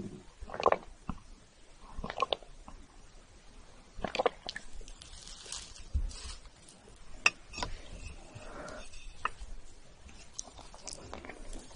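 Close-miked gulps of milk from a glass, three of them about a second and a half apart. Then a spoon cuts and scrapes into a layered chocolate mousse cake, with a few sharp clicks and the crunch of chocolate shavings.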